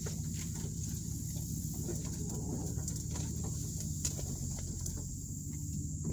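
Dodge Ram pickup engine running steadily at low speed, heard from inside the cab, with scattered small knocks and rustles as the truck creeps over the rough, grassy path. A steady high-pitched insect buzz runs behind it.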